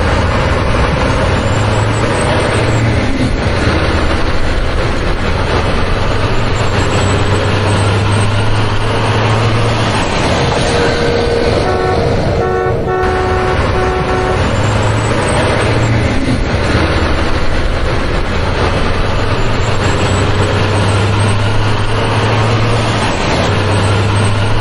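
A heavy vehicle's engine running steadily, its low hum swelling and easing several times, with a run of short horn-like toots about halfway through.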